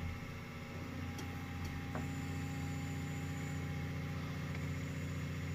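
Diesel engine running steadily with an even low hum that grows a little fuller about two seconds in.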